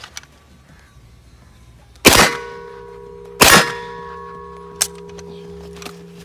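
Two single shots from a POF 5 semi-automatic 9 mm pistol, about a second and a half apart, each a sharp crack with a short echo. Background music with held notes comes in with the first shot.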